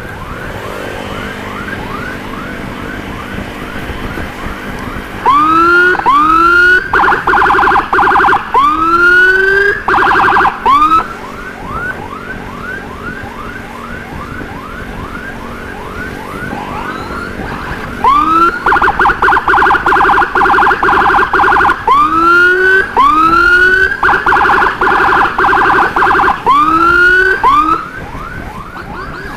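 Ambulance electronic siren in its fast emergency yelp, about four rising sweeps a second. The escort takes this mode as a sign that the patient's condition is getting worse. Twice a louder siren cuts in over it, from about five seconds in and again from about eighteen seconds, with slower rising whoops and a rapid warble.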